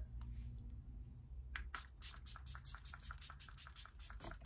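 A hand-pumped spray bottle, a cosmetic mist or perfume atomiser, spritzing in a quick run of short, faint hisses, about five or six a second, for nearly three seconds.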